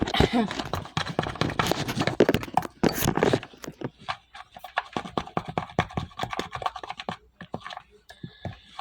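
A kitchen utensil scraping and clicking against cookware while dough is worked and spread, with a dense stretch of scraping over the first few seconds and then scattered lighter clicks.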